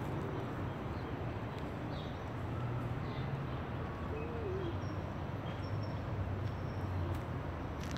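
Outdoor ambience: a steady low rumble with faint, short bird chirps now and then, and one brief wavering call about halfway through.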